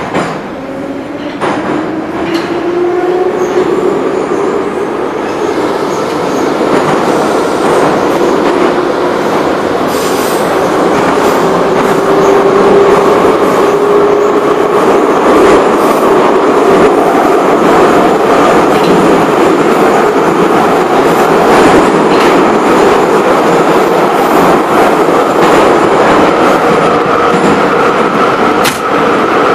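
Moscow Metro Ezh/Em-series subway train heard from inside the car, picking up speed. The motor and gear whine rises in pitch over the first few seconds as the running noise builds, then settles into a steady loud run with wheel-on-rail rumble and a few sharp clicks.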